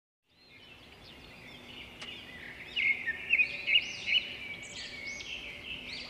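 Birds chirping and twittering in a steady chorus of short, high calls, fading in from silence and growing louder about three seconds in.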